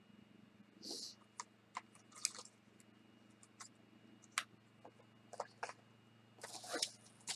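Small items and packaging being handled: scattered light clicks and short rustles, with a longer bout of rustling near the end.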